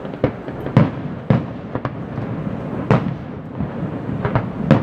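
Aerial fireworks display bursting: a string of about seven booms in under five seconds, the loudest about a second in, over a continuous rumble of noise between them.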